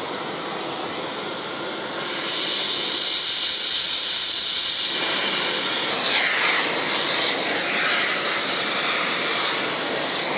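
Oxy-fuel brazing torch flame hissing steadily while it preheats a cast iron part. The hiss gets louder and sharper about two seconds in and changes texture about five seconds in.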